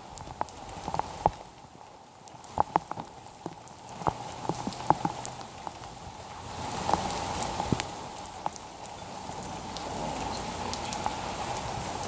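Steady heavy rain, with sharp taps of single drops hitting close by; the downpour grows louder about halfway through.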